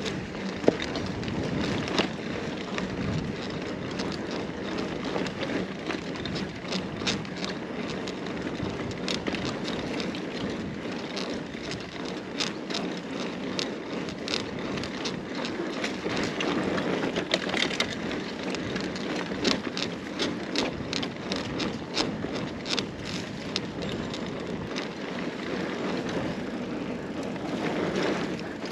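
Carrera Hellcat mountain bike being ridden: steady rolling tyre and wind noise, with frequent sharp rattles and clicks from the bike and one louder knock about a second in.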